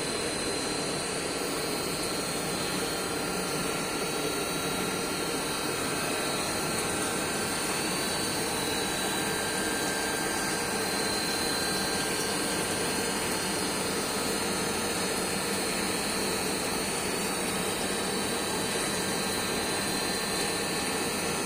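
Submerged CNC wire-cut EDM machine running: a steady hiss and hum from the machine and its dielectric flushing, with a faint high whine over it.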